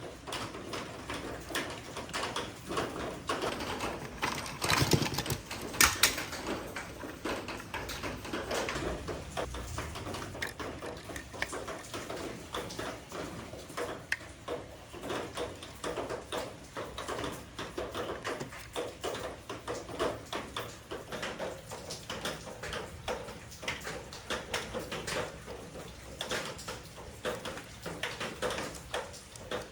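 Hard plastic toy figures and their packaging being handled: a steady run of small clicks, scrapes and rustles, with a louder clatter about five to six seconds in.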